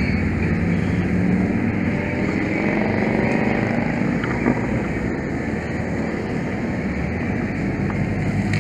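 Fire engine's engine running steadily, a loud, even low drone.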